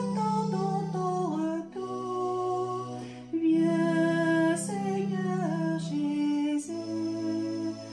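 Slow sacred music: sustained organ-style keyboard chords over a held bass note, changing every second or two, with a woman's voice singing along.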